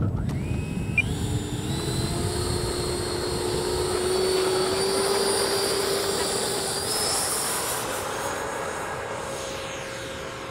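Electric ducted-fan RC jet spooling up with a rising whine, then running at high power with a steady whine over a rush of air. The pitch steps up near the end.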